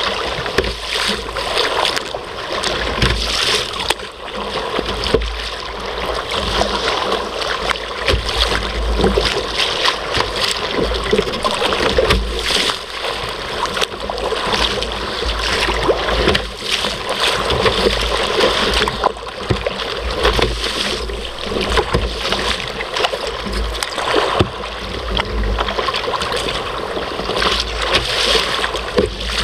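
Waves slapping and splashing against a sea kayak's hull in 4–5 foot rollers, with a headwind buffeting the microphone in a low rumble that comes and goes.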